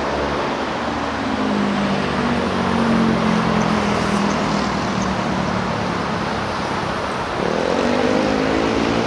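Road traffic with a motor vehicle's engine running, its pitch climbing sharply about seven and a half seconds in as it accelerates.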